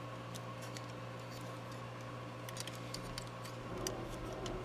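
Faint clicks and ticks of plastic model-kit parts being handled and pressed back into place on a 1/100 Master Grade Gundam model, mostly in the second half, over a steady low hum.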